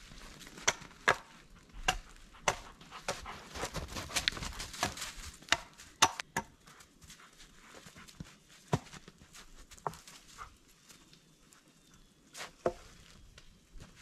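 Irregular sharp knocks and snaps, about fifteen, bunched with rustling in the first half and more spaced out later.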